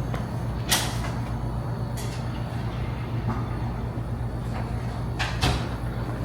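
Steady low vehicle rumble, with a few sharp clicks about a second in, at two seconds and near the end.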